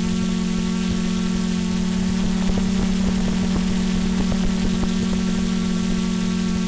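Quadcopter motors and propellers buzzing steadily at one pitch over a hiss, as heard by the camera mounted on the hovering drone. Faint crackles come in from about two to five seconds in.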